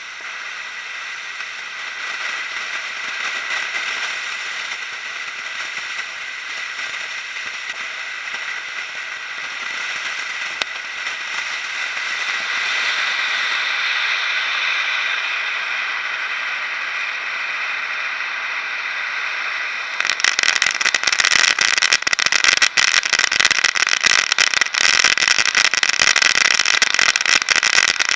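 Ground fountain firework spraying sparks with a steady hiss. About two-thirds of the way through it turns suddenly to a much louder, dense crackling.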